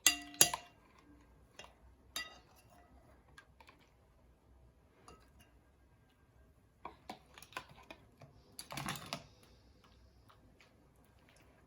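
A utensil clicking and tapping against a mixing bowl as thickening slime is stirred. There is a ringing clink at the start, scattered taps, then a quicker run of clicks and a short scraping burst about nine seconds in.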